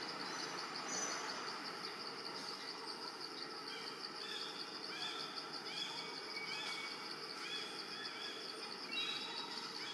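Forest ambience: a steady, high, fast-pulsing insect trill, joined about four seconds in by a bird repeating short rising-and-falling notes roughly twice a second.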